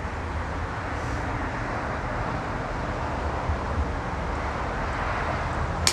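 Steady rushing background noise with a low rumble underneath, and one sharp click at the very end.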